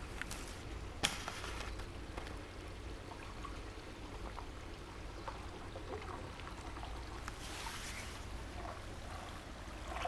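Spring water flowing steadily through a stone channel, a continuous rushing trickle. There is one sharp click about a second in.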